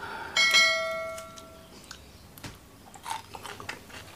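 Bell chime sound effect of an on-screen subscribe-and-notification-bell graphic: struck once about half a second in, ringing out over about a second and a half. Faint clicks and smacks of eating by hand follow.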